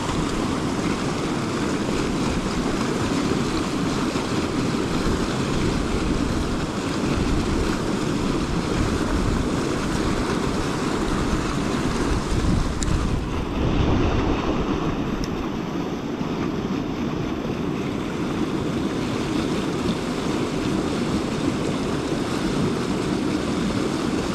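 Steady rush of flowing river water with wind on the microphone, briefly a little louder about thirteen seconds in.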